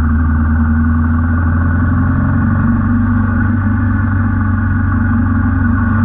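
Royal Enfield Himalayan 450's single-cylinder engine running at a steady speed on the move, an even low drone with no change in pitch.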